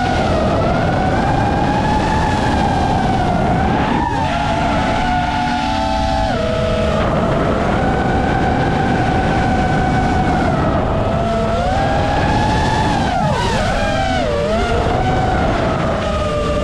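FPV quadcopter's motors and propellers whining over a dense rush of air noise, the pitch rising and falling with the throttle. There are sharp drops a few seconds in, and a quick wavering stretch of throttle changes about two-thirds of the way through.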